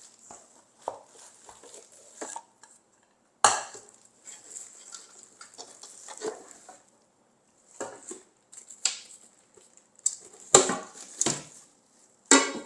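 Cast aluminium cooking pots being handled, with a series of scattered knocks and clanks as the pots and lids bump together, the loudest about three and a half seconds in and a cluster near the end.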